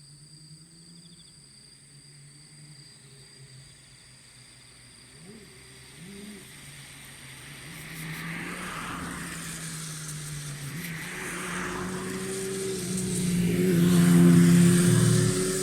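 A road vehicle approaching and passing close by: engine hum and tyre noise grow steadily louder, are loudest about fourteen seconds in, then begin to fade.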